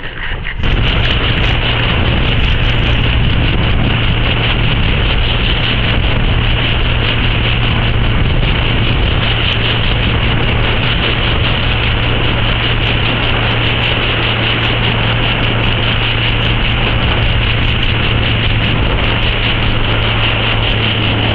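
Motorboat engine running steadily with a low hum, under rushing wind and water noise on the microphone; it jumps louder about half a second in and then holds steady.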